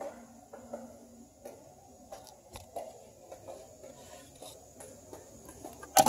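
Faint, irregular clicks and scrapes of a socket and extension being worked on the intake manifold's Torx bolts, with a sharper cluster of metal clicks near the end.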